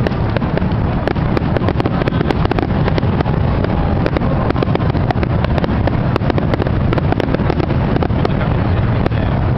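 Fireworks going off: a dense, continuous run of sharp cracks and pops over a steady low rumble.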